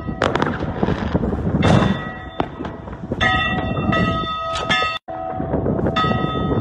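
Church bells ringing, struck again about three seconds in, with sharp bangs of fireworks going off over a steady low rumble.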